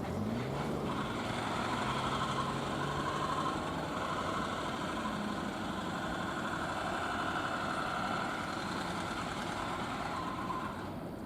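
Freight train running through the station: a steady mechanical running noise, with a low hum that rises in pitch in the first second and then holds steady.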